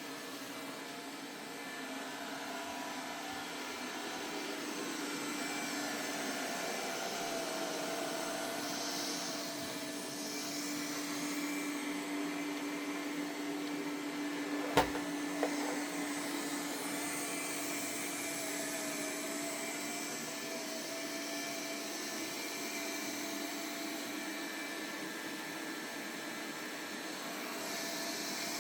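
Samsung Steam AI Ultra robot vacuum-mop running steadily as it cleans: an even motor and suction noise with a held low hum. About halfway through there is a sharp knock, then a smaller one.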